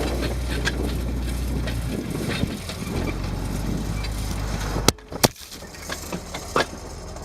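Massey Ferguson 2705 tractor engine running steadily, then two sharp clicks about five seconds in, after which the engine's low hum drops away and only a few faint ticks remain.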